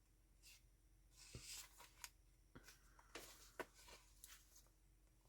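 Faint rustling and a few soft clicks of paper pages being handled and turned in a handmade junk journal.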